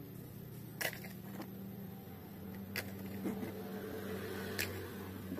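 Mud-caked plastic toys being picked up and handled, giving a few light clicks and knocks, over a faint steady low hum.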